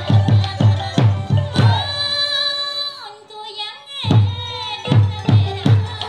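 Cambodian folk dance music: a steady drum beat of about three strokes a second. The drumming pauses about two seconds in while a held melody line slides downward, then resumes about four seconds in.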